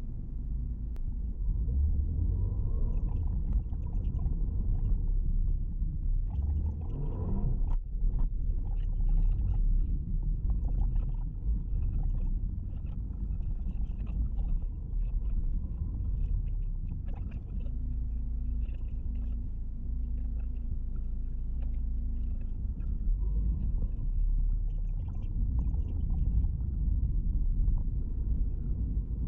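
Low, steady rumble of engine and road noise inside a moving Buick HRV's cabin, picked up by a windscreen dashcam, with faint light ticks and rattles throughout and a brief louder swell about seven seconds in.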